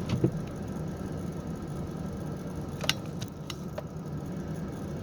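Steady low hum of a running car, with a low knock just after the start and a few sharp clicks around three seconds in.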